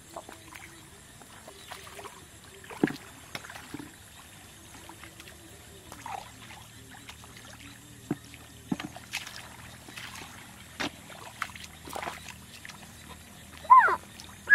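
Hands splashing and groping through shallow muddy water in a rice-field ditch, with scattered soft sloshes and wet clicks. Near the end come two short, loud cries that fall in pitch.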